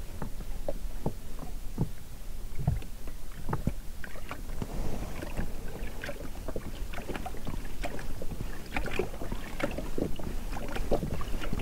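Small waves lapping and slapping against the side of an inflatable rubber boat, a run of irregular soft knocks and splashes over a low rumble.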